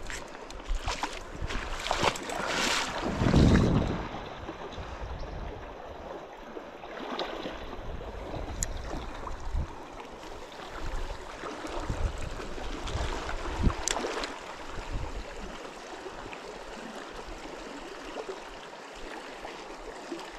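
River water rushing and flowing steadily, with scattered knocks and rustles from handling or footsteps on the bank and a louder rush about two to three seconds in.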